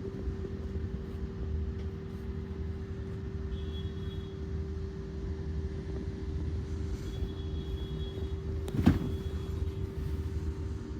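Steady low background rumble and hum, with a single sharp knock about nine seconds in.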